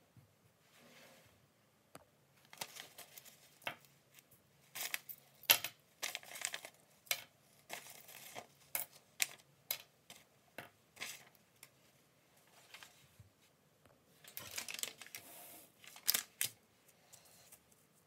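Small pocket items such as keys and coins being set down and moved about on sheets of paper: a scatter of light clicks and clinks, with short bursts of paper rustling.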